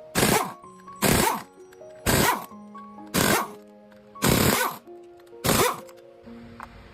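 Background music: a steady beat of sharp, noisy hits about once a second over held notes.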